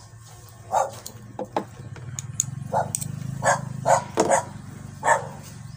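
A dog barking repeatedly, several short barks a second or so apart, over a steady low hum.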